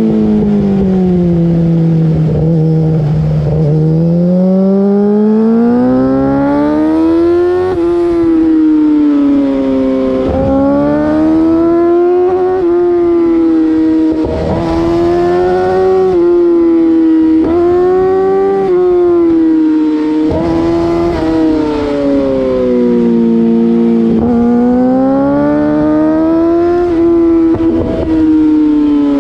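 2008 Yamaha R6's inline-four engine through an Akrapovic full race exhaust, ridden hard. Its pitch climbs and falls over and over, with several sudden breaks in pitch.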